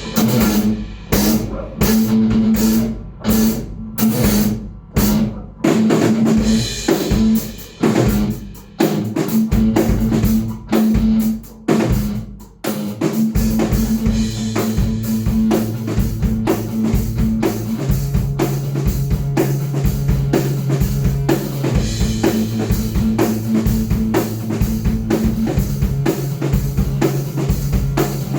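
Alternative-metal band playing on drum kit, bass and guitar. For about the first twelve seconds it plays short, stop-start hits with brief gaps between them, then settles into a continuous groove with steady bass drum and low held notes.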